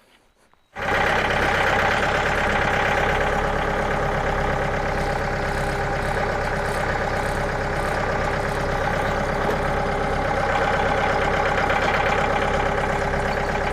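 Tractor engine running steadily at a constant, idle-like speed, cutting in abruptly just under a second in.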